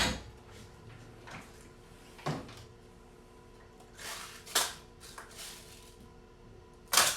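Rummaging through pellet tins and containers: a knock about two seconds in, a few short scrapes and rattles, and a sharp knock near the end.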